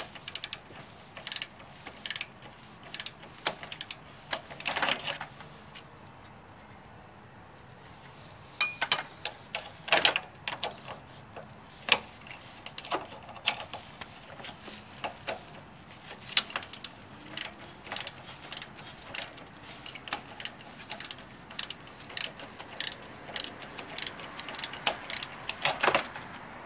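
Hand ratchet wrench clicking in short, irregular runs as the bolts of a Dodge Neon's engine-transmission anchor mount are worked, with a short pause partway through.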